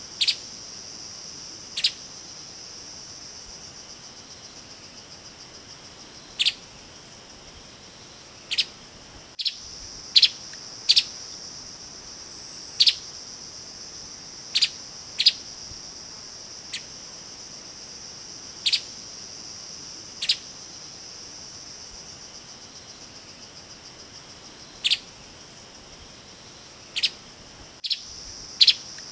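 Streaked spiderhunter giving short, sharp single call notes at irregular intervals, about one every two seconds, sometimes two close together. Under them runs a steady high-pitched insect drone.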